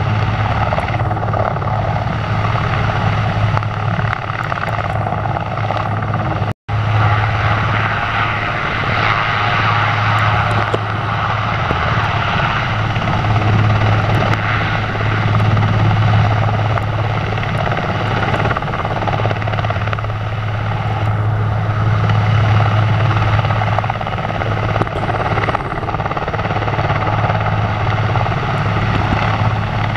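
Airbus AS532 AL Cougar twin-turboshaft helicopter in a low hover, running steadily, with a strong low rotor hum over a wide rushing noise. The sound cuts out completely for an instant about six and a half seconds in.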